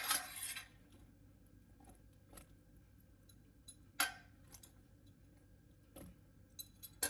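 A spoon clinking against an aluminium pressure cooker as spoonfuls of marinated mushrooms are dropped in. There are a few separate short knocks, the strongest at the start and about four seconds in, with near quiet between.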